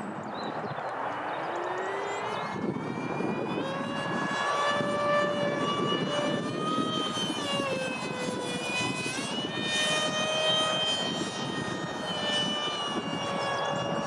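Electric ducted fan of a Freewing Eurofighter RC jet (WeMoTec Midi six-blade fan) whining as the model flies, the pitch bending down and up several times as it passes and changes throttle, over a steady rush of wind noise.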